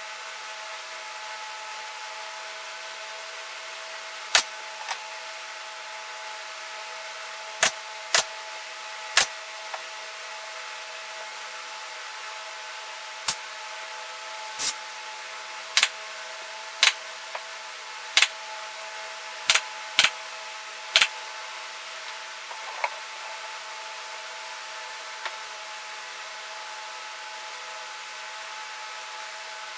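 About a dozen sharp, short knocks, irregularly spaced and starting a few seconds in, over a steady hum with several fixed tones; the knocks stop well before the end.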